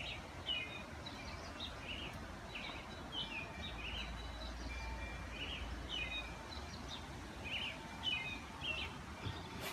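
Small birds chirping faintly and irregularly in the background, over a low steady hum.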